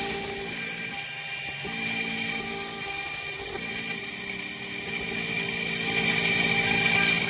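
Homemade CNC router's high-speed spindle whining as it mills aluminum, the cutting sound dropping and swelling in loudness a few times.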